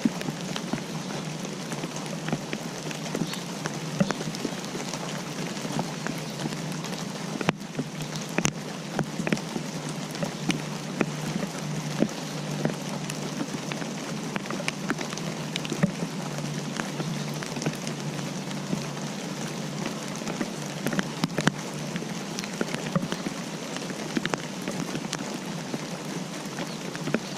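Steady rain, with many individual raindrops ticking sharply onto a hard surface.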